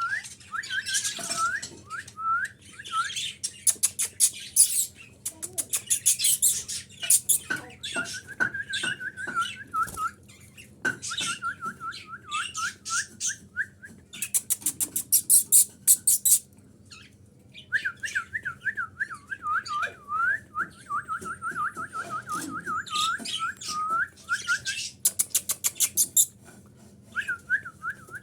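Exhibition budgerigars chirping and chattering: runs of quick repeated whistled notes swooping up and down, broken by bursts of fast scratchy chatter, with short pauses between.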